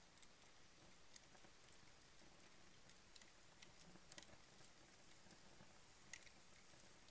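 Faint crackling of paper and cardboard burning in a fireplace: scattered sharp crackles over a soft steady hiss, the loudest about six seconds in.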